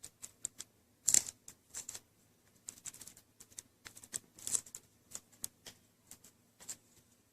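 Irregular small clicks and taps from the display cable connector and the new LCD panel of an Acer Aspire V5-571 being handled, as the cable is pressed into the back of the screen. The loudest click comes about a second in.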